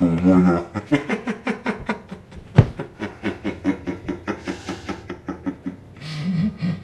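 A person's voice in a long run of short pitched pulses, about four to five a second. A single sharp hit comes about two and a half seconds in.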